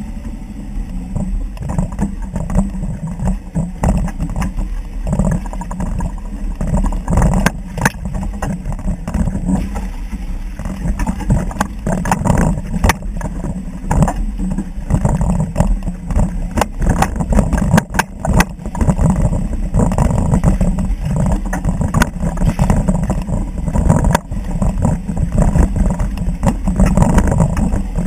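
Suzuki Vitara 4WD crawling over rough dirt, heard from beneath the rear axle: a low, uneven engine and drivetrain rumble with frequent sharp knocks and clicks throughout.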